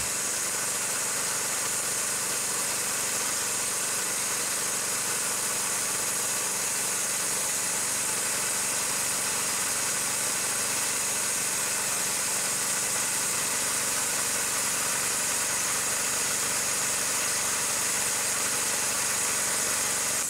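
Homemade car-wheel bandsaw mill driven by an 11 HP engine, running at raised revs while its blade cuts a log lengthwise. The engine drone is steady throughout, with a constant high hiss over it.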